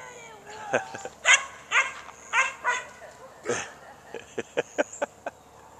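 Shetland sheepdog barking excitedly: about six loud barks in the first three and a half seconds, then a quick run of short, sharp yips.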